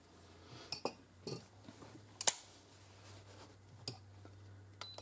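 Several sharp metallic clicks and light knocks as a stainless Ruger GP100 revolver and a digital trigger gauge are handled while readying a single-action trigger-pull measurement. The loudest is a quick double click about two seconds in.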